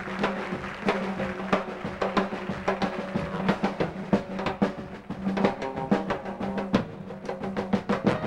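Pit orchestra playing an up-tempo instrumental dance passage, with drum and percussion hits coming about twice a second over a held low brass-and-bass note.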